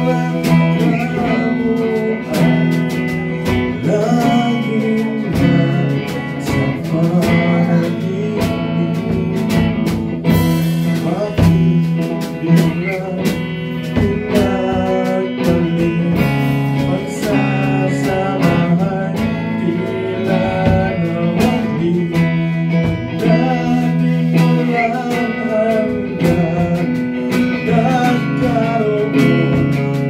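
Live band playing a pop-rock ballad, with electric guitar to the fore over bass and drums and a wavering melody line on top.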